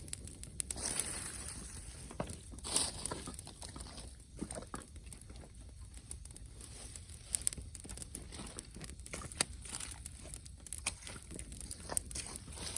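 Wood campfire crackling: irregular sharp pops and snaps, with a few louder cracks scattered through.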